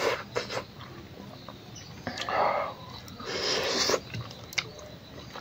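Close-up eating sounds: chewing and wet mouth smacking over a mouthful of rice and smoked pork, with scattered small clicks and two longer smacking noises, about two seconds in and about three and a half seconds in.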